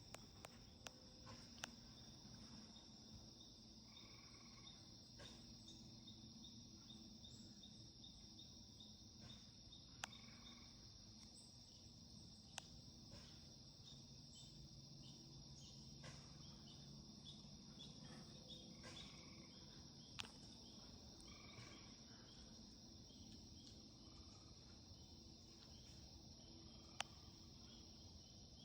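Faint, steady chorus of crickets and other insects, a continuous high trill. A handful of single sharp clicks stand out, spread through it.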